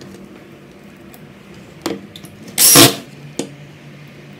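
Cordless drill running in one short burst of about a third of a second, about two-thirds of the way in, driving a screw through a metal bracket into a cabinet panel. A few small handling clicks come before and after it.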